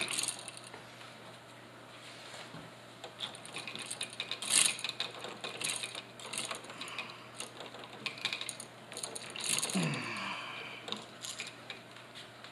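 A plastic twist-on wire nut being screwed by hand onto a bundle of twisted-together copper wires in an electrical box. It makes a string of short, scratchy ratcheting clicks, with the loudest click about halfway through.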